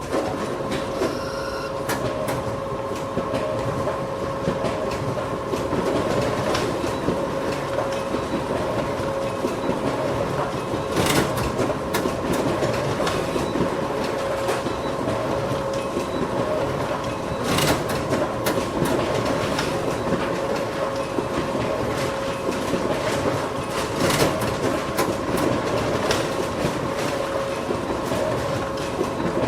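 Photocopier running continuously: a steady mechanical whir with a constant hum-like tone and sharp clicks now and then.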